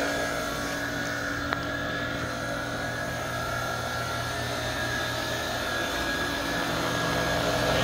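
Mokon Iceman 2-ton heater/chiller running, its refrigeration compressor and water circulating pump giving a steady hum with several constant tones. There is a single sharp click about a second and a half in, and the hum grows a little louder near the end.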